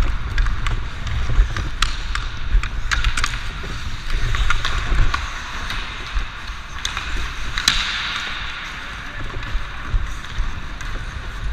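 Hockey skate blades scraping and carving on ice, with sharp clicks of the stick and puck on the ice, a brighter scrape about three quarters of the way through, and a low rumble of wind on the microphone of a camera worn by the skater.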